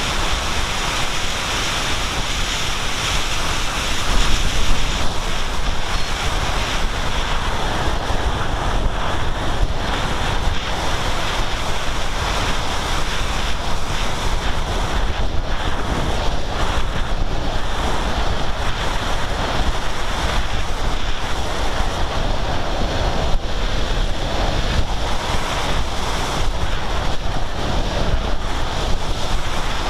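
Steady rushing of airflow over the microphone of a camera carried aboard a Sky Climber model plane in flight.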